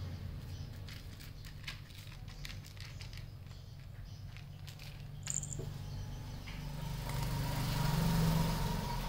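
A cat eating dry kibble from a plastic tub: a run of small crunches and clicks over the first five seconds or so. A steady low rumble underlies it and swells near the end.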